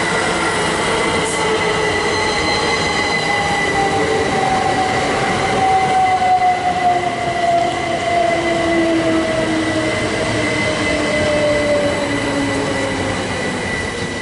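Class 387 Electrostar electric multiple units running in and braking: a steady high whine over rail noise, with a motor whine that falls slowly in pitch as the train slows.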